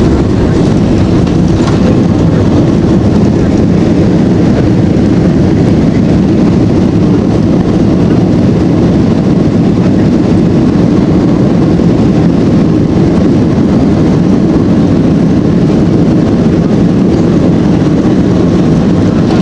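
Steady, loud roar in the cabin of a Boeing 767-300ER as it decelerates along the runway after landing, with ground spoilers raised. The sound stays even throughout.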